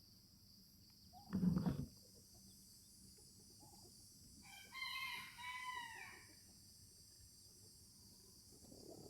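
A rooster crows once, a single call lasting about a second and a half, a little past the middle. Earlier, about a second and a half in, there is a brief low thump that is louder than the crow.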